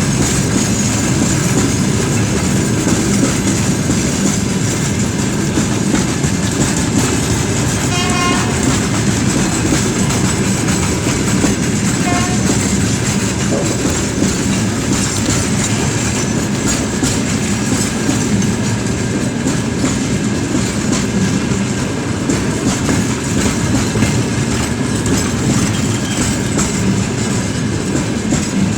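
Freight train rolling past, with a steady loud rumble and the clatter of wagon wheels on the rails.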